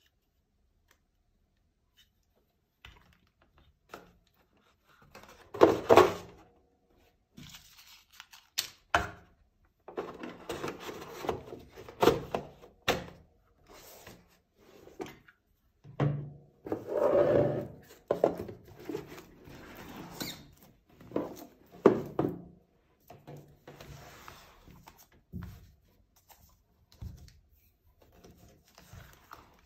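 A tablet's box and packaging being handled while it is unboxed: irregular knocks and thunks, with short stretches of rustling in between.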